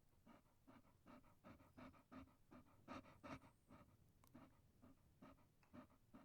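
Dog panting: short, quick breaths at a steady rhythm of about two to three a second, faint.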